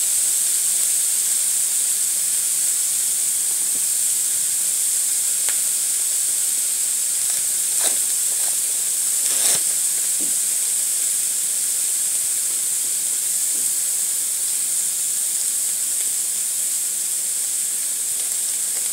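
Egg omelet and diced ham sizzling on a flat-top griddle: a steady high hiss, with a couple of soft ticks near the middle.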